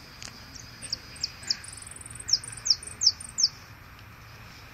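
Caged jilguero finch singing one phrase of sharp, quick, downward-sweeping whistled notes. A short buzzy trill comes midway, and the last four notes are the loudest.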